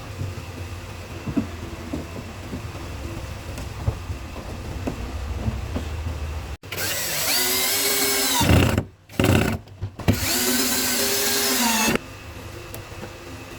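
Electric power tool motor switched on twice in short bursts of about two seconds, each time spinning up to a steady high whine and winding down. Before these there is a low rumble with scattered knocks and handling sounds.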